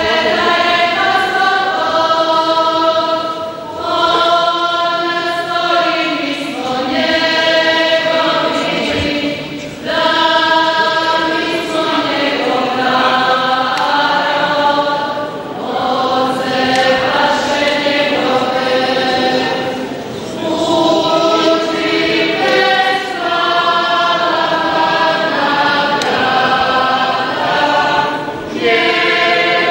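Choir singing a hymn, held notes in phrases of a few seconds with short breaks between them.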